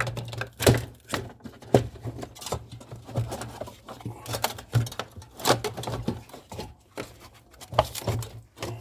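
Irregular knocks and clicks from hands handling and bending a refrigerator's tubing and parts, over a steady low hum.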